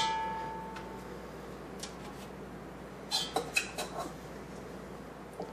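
A stainless steel mixing bowl rings after a knock, the ring fading over about a second. A few light taps and clicks follow three to four seconds in as a hand scoops dough from the bowl.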